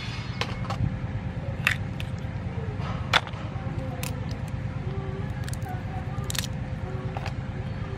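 Small crabs' shells being cracked and pulled apart by hand, the top shell prised off the body: a scatter of short sharp cracks and snaps, the loudest a little after three seconds in, over a steady low background rumble.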